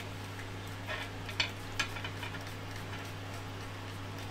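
A few light clicks and taps of screws and a printed plastic part being handled and fitted against a 3D printer's metal frame, clustered in the first two seconds, over a steady low hum.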